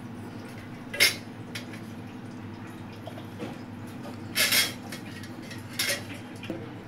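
A few sharp clinks and taps on stainless steel as paneer is crumbled into a steel mixer-grinder jar, the loudest about a second in, at four and a half seconds, and near six seconds, over a faint steady hum.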